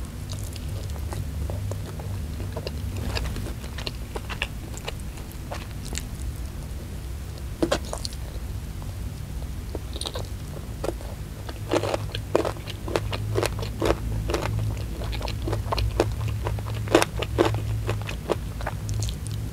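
Close-miked biting and chewing of sambal-coated fried chicken, with many short crisp crunches and wet chewing, thickest about two-thirds of the way in. A steady low hum runs underneath.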